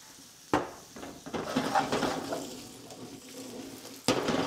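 Pan and utensil clatter as the guanciale strips are stirred in the frying pan, a sharp knock about half a second in, scraping that fades, and another knock near the end.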